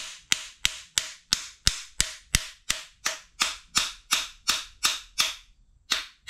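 Sharp taps on an SRT-4's electric fuel pump, about three a second with a short pause near the end. The pump has power but stays silent between the taps, a sign that it is dead.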